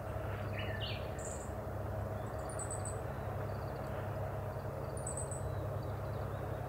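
Small birds chirping in short, high bursts, several times, over a steady low wash of ambient noise from waves on the shore.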